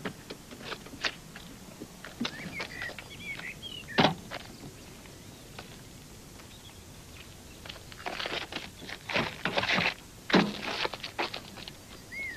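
Footsteps and scuffling with scattered knocks and thuds: one heavy thump about four seconds in, and a quick run of them from about eight to ten seconds in.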